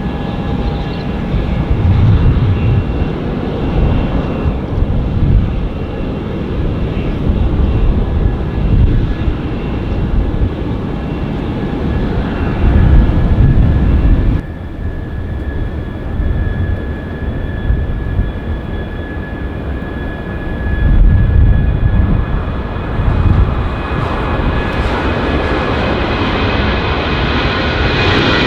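Boeing 737-800 jet engines running at taxi idle: a steady whine of high tones over a low rumble, dropping somewhat in level about halfway through.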